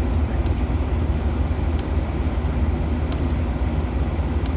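Steady in-cab rumble of a 2011 Ford Ranger pickup driving: engine and tyre noise heard from inside the cab.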